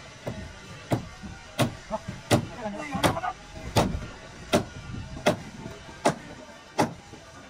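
Hammer blows on wood in a steady, even rhythm, about one strike every three-quarters of a second.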